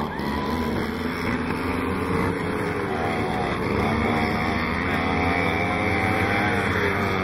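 Several NSU Quickly mopeds' small 49 cc two-stroke single-cylinder engines running together at racing speed, their pitches rising and falling as the riders open and close the throttle.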